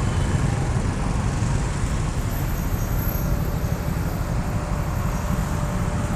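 Steady street traffic noise from cars and motorbikes going past, mostly a low rumble.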